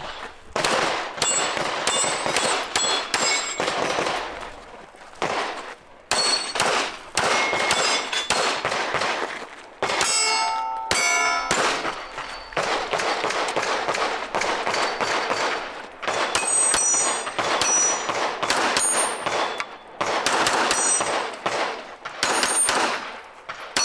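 Rapid pistol fire at steel targets, the shots mixed with the clang and ring of bullets striking the steel plates, in several quick strings with short pauses between them.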